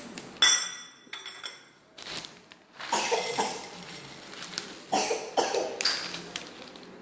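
A stainless steel bowl clinks with a high ringing tone about half a second in, then a plastic packet of puffed rice rustles as the puffed rice is poured into the bowl. A toddler makes a few short vocal sounds.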